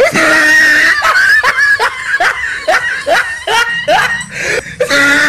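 A person screams, then laughs in a quick run of short, rising-pitched bursts, about two or three a second, with another held scream near the end.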